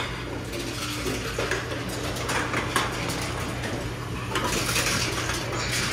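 Aluminum cans being fed one at a time into an Envipco reverse vending machine: metallic clatter and clicks as the cans go in and the machine takes them, over a steady low hum.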